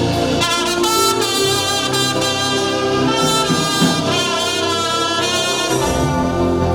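Music: a brass-sounding melody over held chords. The melody stops about six seconds in, leaving the sustained chords.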